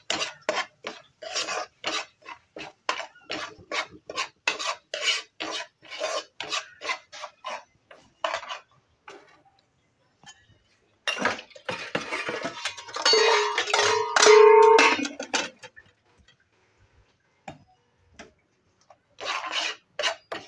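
A steel spoon scraping and stirring dry semolina around a nonstick frying pan, in quick repeated strokes, two or three a second. The stirring pauses in the middle, and a louder rushing sound with a steady hum is heard for about four seconds before the scraping starts again near the end.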